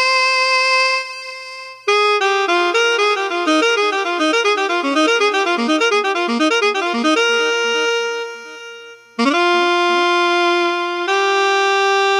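Ensoniq ASR-10 sampler playing a sampled instrument patch, heard direct from its outputs: a held note, then a fast run of notes climbing and falling for about five seconds, then long sustained notes.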